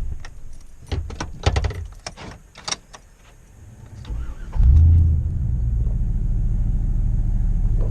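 Pickup truck engine switched off, a few key and switch clicks, then cranked and restarted about four and a half seconds in, settling into a steady idle. The restart is an attempt to clear a 'service 4WD' warning.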